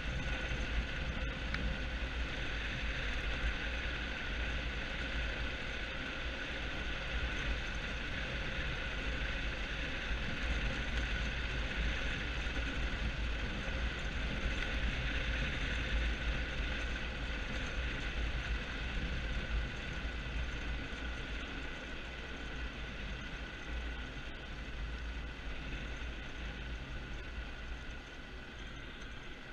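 Engineless soapbox car on a go-kart chassis rolling downhill: steady rolling noise of its slick tyres on rough asphalt, with a heavy low rumble and a steady high hum, easing slightly near the end.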